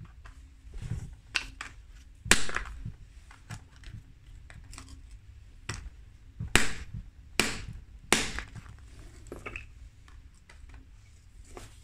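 Sledgehammer blows striking a cast disc of Smooth-On Task 12 tooling resin: one heavy blow about two seconds in, then three heavy blows in quick succession around the middle, with a few lighter knocks between.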